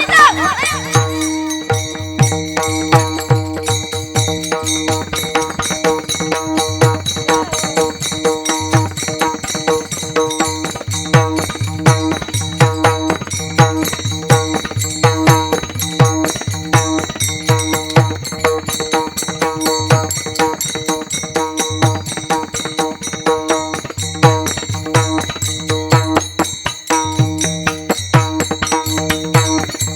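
Instrumental kirtan accompaniment without singing: a hand drum beating a steady rhythm and small cymbals jingling over held drone notes.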